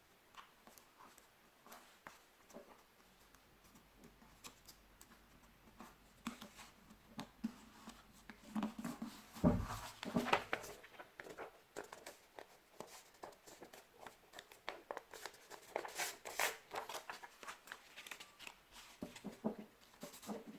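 A sheet of paper being folded and creased by hand: quiet crinkling rustles and short scraping strokes, busier around the middle and again later on.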